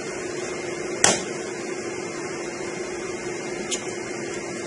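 Steady fan noise with a low hum, and a sharp click about a second in and a fainter one near the end as parts inside an open Dell PowerEdge server are handled.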